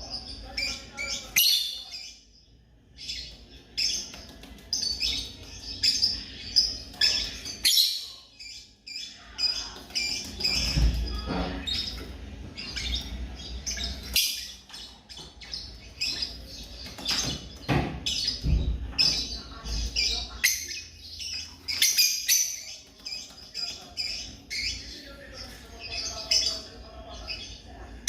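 African lovebirds chirping rapidly and continuously in short, high, sharp calls. A couple of low rumbles come through in the middle.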